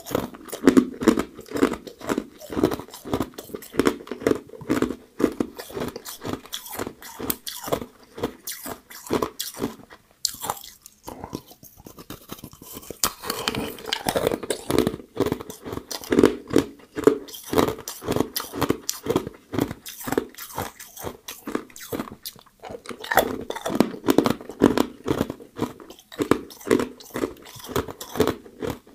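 Close-miked crunching of hard ice being bitten off a frozen cluster and chewed: a rapid, dense run of sharp cracks, easing into a short lull about a third of the way through before the crunching picks up again.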